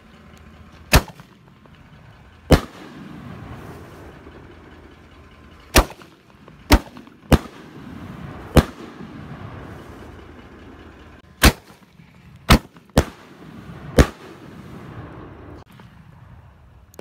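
Epic Thunder consumer canister shells firing and bursting in the air: about ten sharp bangs at uneven intervals, with a low rumble lingering between them.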